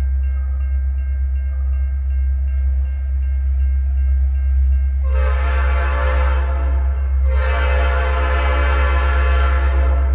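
Air horn of an approaching Illinois Central EMD SD70 diesel locomotive giving two blasts, a shorter one about halfway through and a longer one of nearly three seconds, over a steady low rumble.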